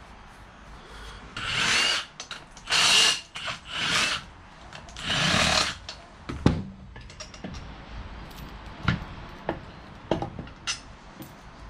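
Cordless drill-driver running in four short bursts, backing out bolts on a jet ski engine, followed by sharp clicks and knocks as the tool and parts are handled on the bench.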